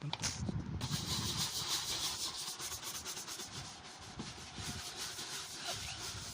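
Quick, steady scrubbing strokes on a plastic headlight lens coated with a baking soda and vinegar paste.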